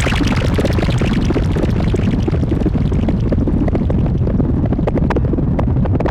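Harsh noise from a eurorack modular synthesizer, FM-patched: a dense, distorted low rumble riddled with crackling clicks. A bright hiss on top fades away over the first couple of seconds.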